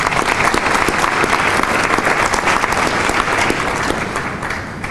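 An audience applauding, dense clapping that fades away near the end.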